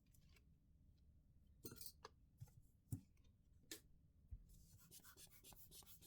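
Faint clicks and scraping from handling a smartphone's small parts and tools during repair. There are a handful of separate sharp clicks, then a quick run of scratchy rubbing strokes over the last second and a half.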